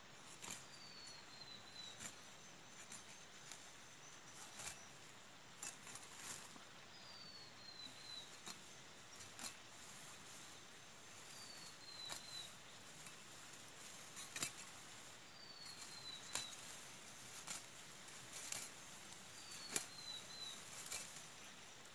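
Hand sickle cutting and pulling dry grass, with faint irregular crisp swishes and rustles every second or two. A bird repeats a short, high, falling call about every four seconds.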